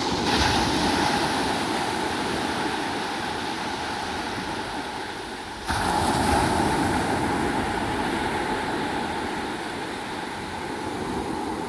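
Sea waves breaking and washing on the shore. The surf swells suddenly near the start and again about halfway, easing off between.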